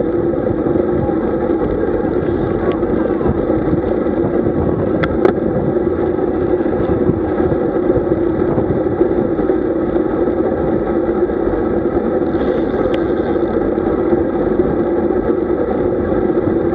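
Steady rush of wind and road noise on the camera of a moving road bike, with a couple of faint ticks.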